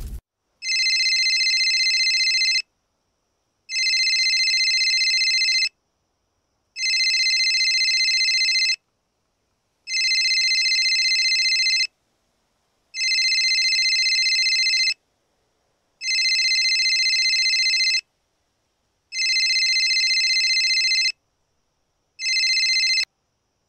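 Telephone ringing with a steady electronic ring, about two seconds on and one second off, eight times. The last ring is cut short, as when the call is picked up.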